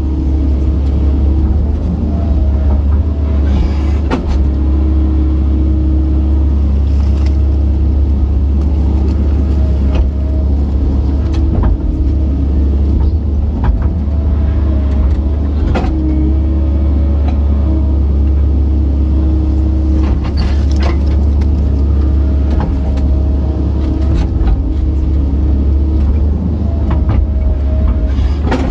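Kobelco SK135SR excavator's diesel engine running steadily under load, heard from inside the cab, with a hydraulic whine that comes and goes as the boom and bucket work the mud. Scattered short knocks and clanks.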